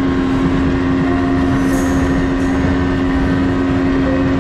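Motorboat engine running at a steady pitch while the boat is underway, with a steady rushing noise underneath.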